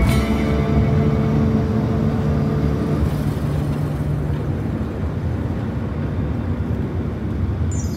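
Road and engine noise of a moving car heard from inside the cabin, with a few steady low tones for about the first three seconds.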